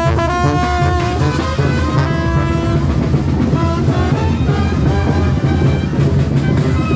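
Live street brass band playing, with trumpets, trombone and sousaphone over a bass drum. Clear held horn notes stand out in the first three seconds, then the sound turns denser with a heavy bass.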